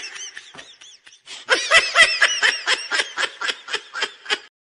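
People laughing: a few soft laughs, then from about a second and a half in a quick run of high-pitched laugh pulses, about five a second, fading and cutting off abruptly near the end.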